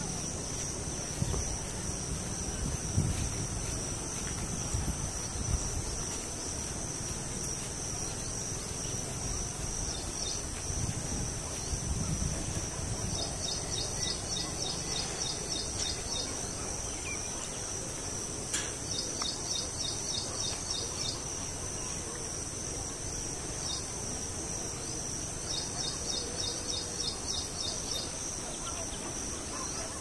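Steady high-pitched drone of insects in grassland, with three bouts of rapid chirping a few seconds long, in the middle and near the end.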